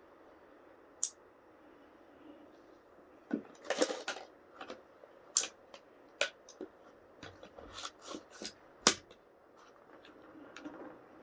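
Irregular sharp metallic clicks and clacks of a KSC gas-blowback airsoft Makarov pistol being handled, about a dozen in all, the loudest about nine seconds in.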